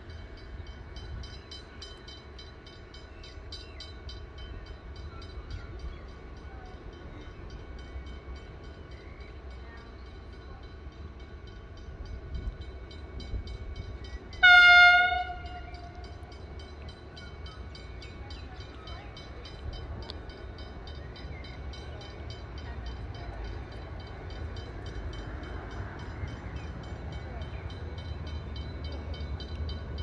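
An approaching train sounds one short blast of its horn, a single steady tone about a second long, halfway through. Under it a low rumble goes on and grows a little toward the end as the train draws nearer.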